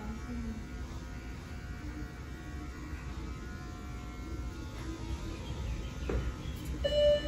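Steady low electric buzz with faint background music. Near the end comes a click, then a ringing tone with overtones sets in.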